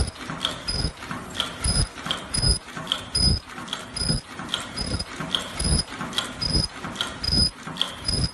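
Automatic high-speed mask-making machine running in steady cycles. Each cycle is a low thump with a short high-pitched tone and a click, repeating about every three-quarters of a second, near its rated 80–90 masks a minute.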